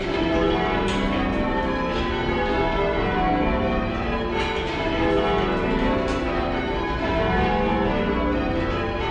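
Bletchingley's light ring of ten church bells being rung in changes, the strikes following one another without a break in an overlapping stream of bell tones. Heard from the ringing room below the bells, where they sound rather quiet and slightly mushy.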